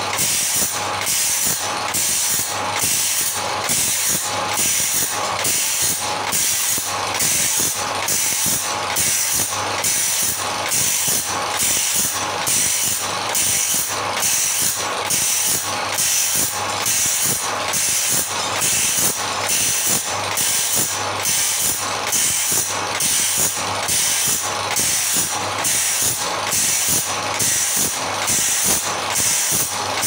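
Automatic bandsaw-blade sharpening machine grinding the teeth of a sawmill bandsaw blade: the abrasive wheel hisses against the steel in an even, repeating cycle as the feed pawl steps the blade along tooth by tooth, over the steady hum of its electric motor.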